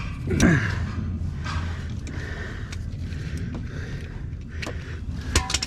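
Hand wrench straining against a seized rear control-arm bolt: repeated scraping strokes and a few sharp metallic clicks near the end, over a steady low hum.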